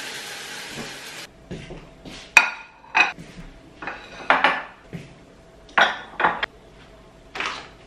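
A pan sizzling on the stove that cuts off about a second in, then ceramic bowls and plates clinking as they are set down and moved on a kitchen counter, several separate sharp clinks.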